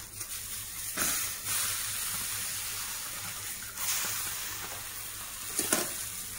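Banana-leaf parcel of small fish sizzling steadily in a hot clay pan, with a few sharper crackling scrapes as the charred leaf is lifted, turned and unwrapped.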